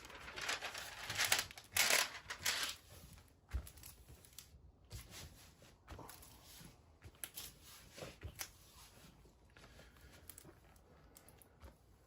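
Crinkling and rustling of a diamond-painting canvas and its clear plastic cover film being lifted and handled. It is loudest in the first few seconds, then turns to lighter, scattered rustles and small taps.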